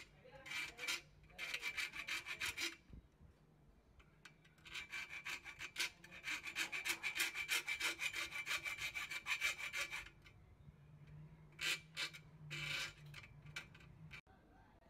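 Rapid scratching as a thin metal rod is scraped back and forth across painted steel angle iron to score a cut line. It comes in four bursts, the longest about five seconds.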